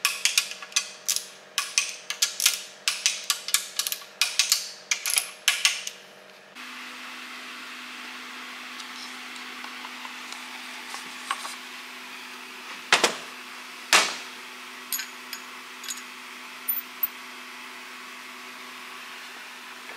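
A ratchet wrench clicks in quick runs as bolts on a Jaguar V8 engine block are turned, for about six seconds. After that a steady hum runs on, with two sharp knocks about a second apart and a few light clicks as metal engine parts are handled.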